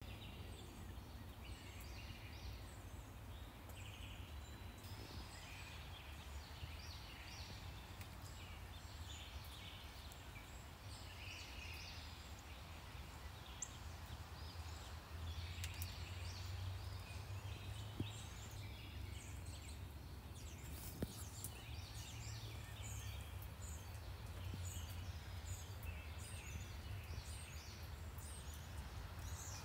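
Birds chirping and singing in short, high calls repeated throughout, over a steady low rumble of distant traffic.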